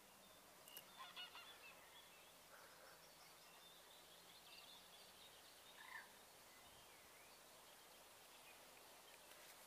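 Faint bird calls over near silence: a cluster of short calls about a second in, and another single call about six seconds in.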